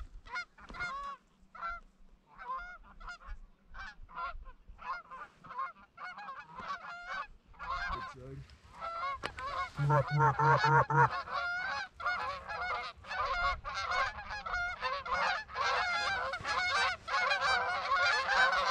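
A flock of lesser Canada geese honking and cackling as they fly in toward the decoys. The calls are scattered at first, then from about halfway through grow much denser and louder as the flock comes closer.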